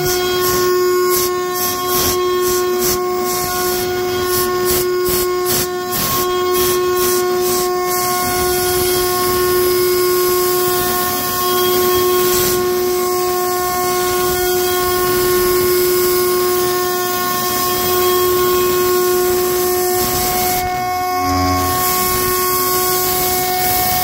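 CNC router spindle whining steadily at about 18,000 rpm while a carbide end mill takes a heavy adaptive roughing cut in aluminium, over a constant hiss of the air blast at the tool. For the first eight seconds the cut pulses in a rhythm of about two to three a second. Near the end the cutting sound breaks off briefly.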